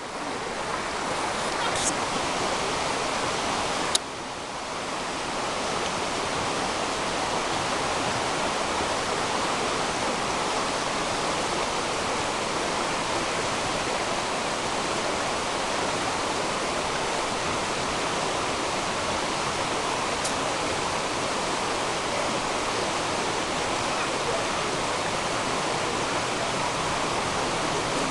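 Steady rushing of running water, an even hiss with no let-up, with a few brief clicks, one about four seconds in.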